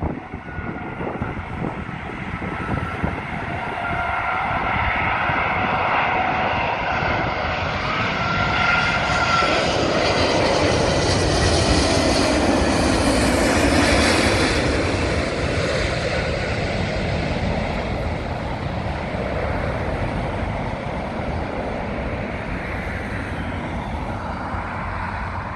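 Airbus A380-841's four Rolls-Royce Trent 970 engines on final approach as the airliner passes low overhead. The noise builds with a whining tone that glides in pitch as it nears, is loudest about halfway through as the plane goes over, then slowly fades as it moves away.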